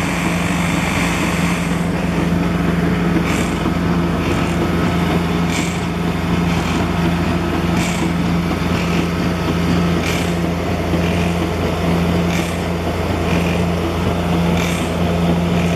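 Concrete pump running under load: its diesel engine drones steadily, with a sharp stroke about once a second as the pump cycles, pushing concrete through the hose into the footers.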